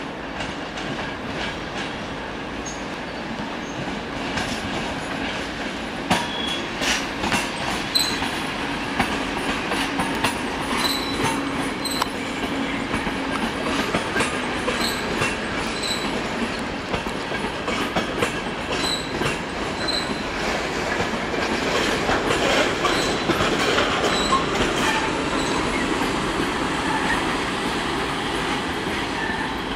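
ÖBB CityShuttle double-deck passenger train rolling through the station tracks, its wheels clicking sharply over rail joints and points and giving short high-pitched squeals. The clicking starts about six seconds in and the running noise swells near the end.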